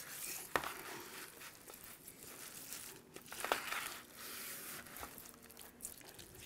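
Hands rubbing and pressing seasoning into a raw leg of lamb in a metal roasting pan: faint wet rustling and squishing, with a couple of light sharp clicks about half a second and three and a half seconds in.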